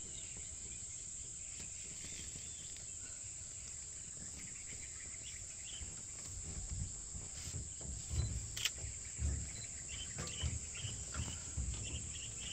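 Steady high-pitched drone of insects such as cicadas or crickets, with a few faint chirps. Irregular low rumbles come in from about six seconds in.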